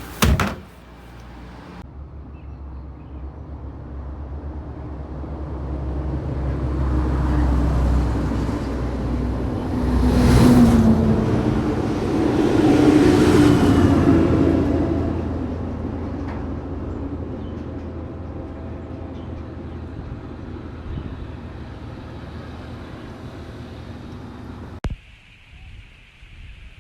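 Road traffic: motor vehicles passing close by, a low rumble and tyre noise that build up, are loudest twice about ten to fourteen seconds in, then die away.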